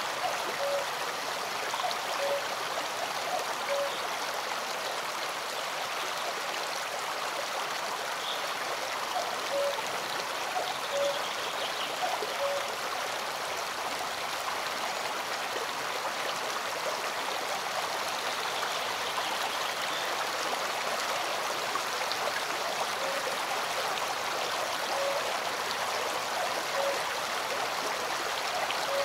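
Small forest stream running steadily over rocks. A short clear note repeats every second or so in runs.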